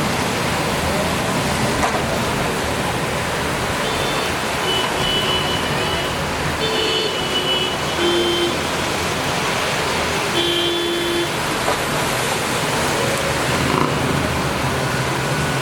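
Heavy rain coming down as a steady loud hiss, with traffic passing and several short car horn toots in the middle.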